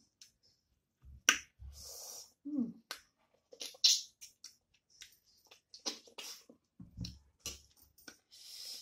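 Close-up eating sounds: sharp wet lip smacks and chewing clicks at irregular intervals, with a couple of short hissing sucks, as rice and fish are eaten by hand.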